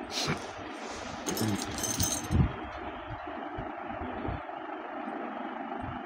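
Steady background noise with a faint hum throughout. In the first two seconds or so come a few brief light metallic clinks and rattles, and some soft knocks.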